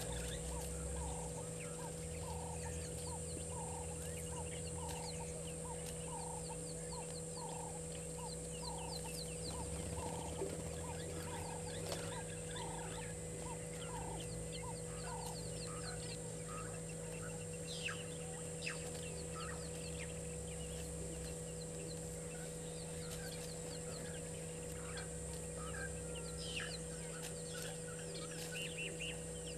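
Birds calling: a low call repeated about twice a second for the first ten seconds or so, and many short, high, falling chirps throughout, over a steady high hiss and a low hum.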